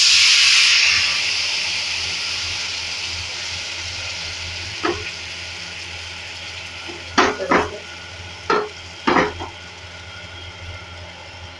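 Semolina cheela batter sizzling as it meets a hot, oiled nonstick tawa. The hiss is loudest at first and fades gradually as the batter sets. There are five short knocks in the middle stretch.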